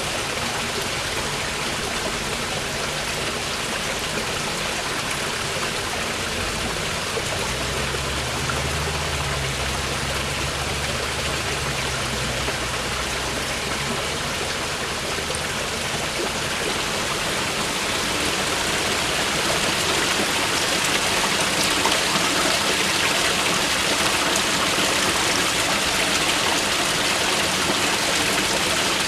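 Mountain river water rushing steadily, growing a little louder and brighter from about two-thirds of the way in. A low rumble runs underneath from about a quarter of the way in to about halfway.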